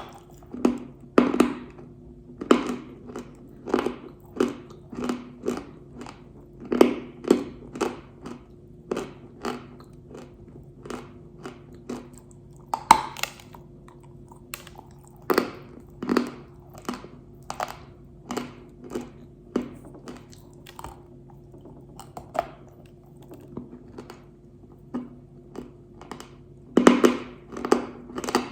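Pink Uzbek edible clay crunching as it is bitten and chewed close to the microphone: sharp, dry crunches about one to two a second, irregular, with a quick flurry near the end.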